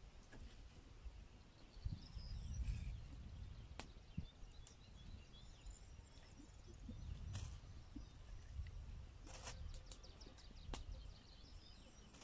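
Quiet outdoor ambience: an uneven low rumble, faint scattered bird chirps, and a few light clicks of a small knife against a flat stone slab as tomatoes are diced on it.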